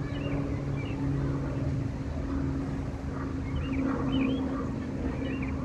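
Pilatus PC-12 NG single-engine turboprop (PT6A) climbing out after takeoff, a steady low propeller drone with a hum. Birds chirp briefly over it, mostly around the middle.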